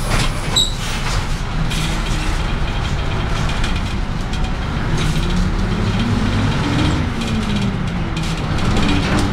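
Jelcz M11 city bus's diesel engine heard from inside the bus while under way. The engine note rises, drops at about seven seconds in as at a gear change, and starts rising again near the end, over a steady rumble.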